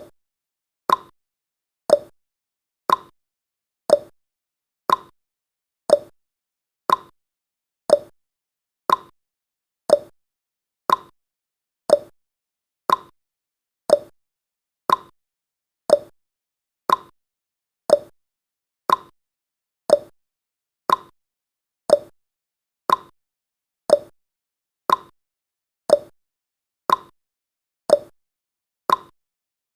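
Countdown timer tick sound effect: a short, sharp tick once every second, evenly spaced.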